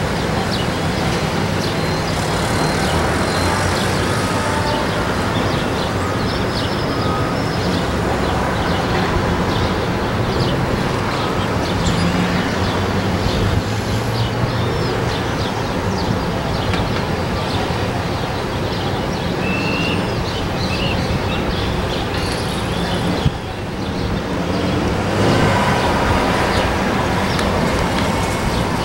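Steady outdoor rumble of engines and traffic, with a low hum and a few faint bird chirps over it.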